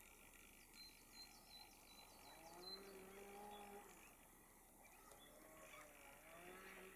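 Common cranes calling in flight: two faint, drawn-out trumpeting calls, the first about two seconds in and the second near the end. Small birds chirp faintly in the background at the start.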